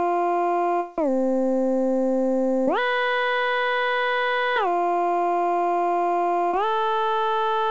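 A Bitwig Poly Grid synth patch, a phase-modulated oscillator through a formant filter and sample-and-hold resampling, built to imitate a background vocal. It plays a slow line of long held notes, each about two seconds, sliding in pitch from one note to the next, with a bright tone full of high overtones. The oscillator's phase-modulation feedback is being turned up as it plays.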